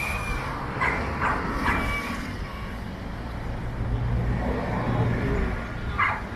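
Road traffic: a motor vehicle's engine rumble swells and passes about four seconds in, over a steady low background hum, with a few short sharp sounds about a second in and again near the end.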